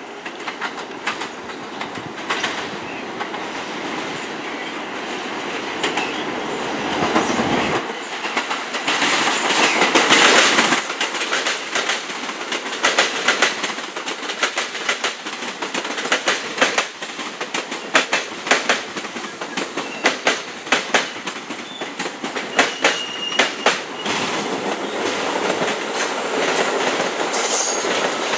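New York City subway trains running over switches and rail joints: a steady rumble that swells to a loud pass about ten seconds in, then a fast, uneven clickety-clack of wheels striking joints and frogs, with a brief high wheel squeal.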